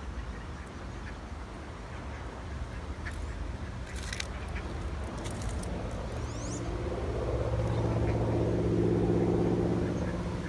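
A few short duck quacks in the first half, then a passing engine hum at a steady pitch that grows louder over several seconds, is loudest near the end and then starts to fade.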